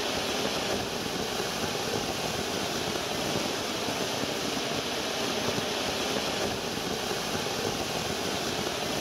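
Giant anar fountain firework spraying sparks: a steady, unbroken rushing hiss.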